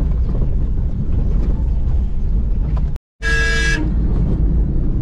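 Steady engine and road rumble heard inside a moving van's cabin. Just after a short cut about three seconds in, a vehicle horn sounds once, for about half a second.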